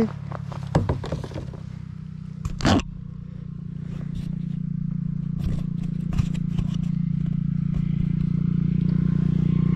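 A steady low motor hum that grows louder, with a few short clicks and scrapes in the first few seconds from a fish and gear being handled in a kayak.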